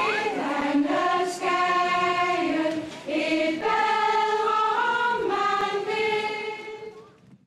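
Choral singing: several voices holding sustained chords that change every second or so, with a brief break about three seconds in, then fading out near the end.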